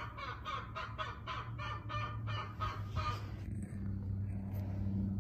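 Poultry calling in a quick, even run of short calls, about four a second, that stops about three seconds in; a low steady hum continues underneath.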